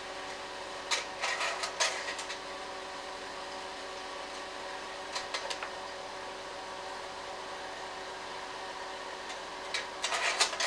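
Slide projector humming steadily from its cooling fan and motor, with short bursts of mechanical clicking and clacking as the slide-change mechanism cycles, about a second in, around five seconds in, and again near the end.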